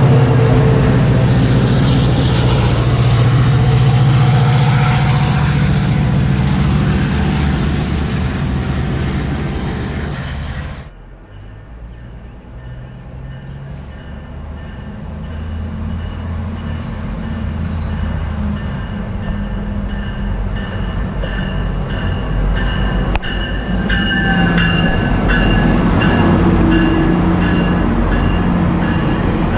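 GO Transit commuter train: a locomotive hauling bilevel coaches passes close by, loud, with a steady low engine hum. After an abrupt cut about 11 s in, another GO train approaches and pulls in alongside the platform, growing louder, with a steady high-pitched squeal of wheels or brakes from about 20 s in.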